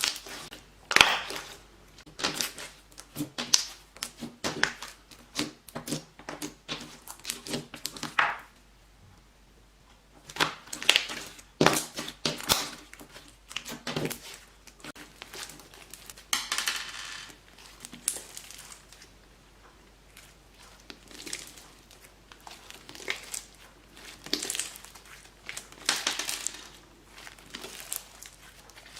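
Slime being squished and kneaded by hand, making irregular sticky pops, clicks and crackles, with a short pause partway through.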